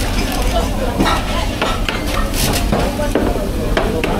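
Busy restaurant kitchen line during service: a steady wash of noise with sizzling from the cooking, and scattered clinks and knocks of utensils against metal pans.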